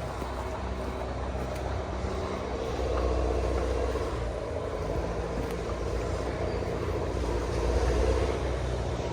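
A motor vehicle's engine running steadily with a low hum, a little louder about three seconds in and again near the end.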